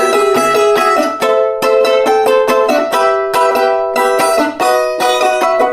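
Balalaika strummed rapidly in an instrumental passage, chords changing every second or so with brief breaks between phrases.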